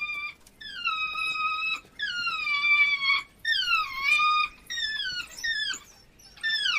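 African wild dogs whining: about six high, drawn-out cries, each sliding down in pitch, with short gaps between them. These are the begging and greeting cries at the den as the hunting party returns with food.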